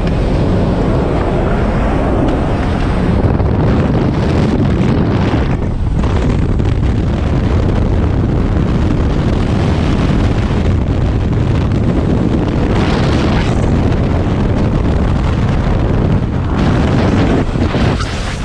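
Loud rushing wind buffeting a helmet-mounted camera microphone, at the open door of a jump plane and on through the exit into freefall.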